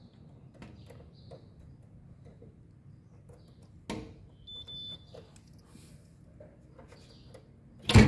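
Faint clicks and rustles of multimeter test leads being handled and pressed onto a washing machine's heater and wiring connectors, with one sharper click about four seconds in.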